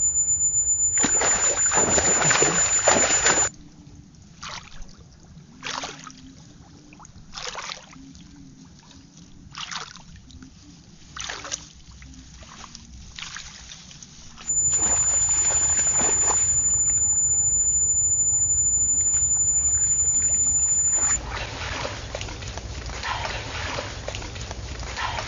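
Water splashing and sloshing. Separate splashes come about every one and a half to two seconds, between louder stretches of steady rushing noise.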